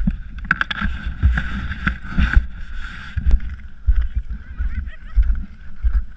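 Footsteps on snow-covered glacier ice, crunching in the first half and then a run of regular muffled thumps about twice a second, heard through a GoPro's waterproof housing while its wearer walks.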